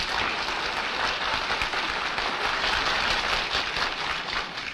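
Audience applauding: a steady wash of many hands clapping that dies away at the end.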